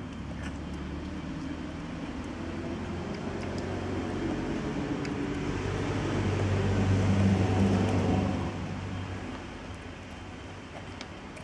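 A motor vehicle passing on the street, its engine hum growing louder to a peak about two-thirds of the way through and then dying away.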